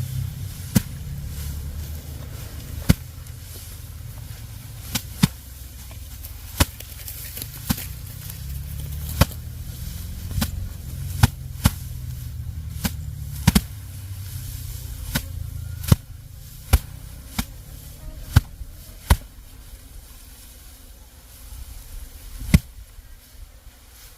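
A series of sharp knocks at irregular intervals, roughly one a second, over a low rumble.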